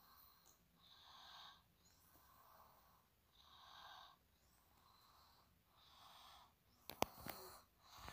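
A person's faint breathing close to the microphone: slow breaths about every two and a half seconds. A few sharp clicks come near the end.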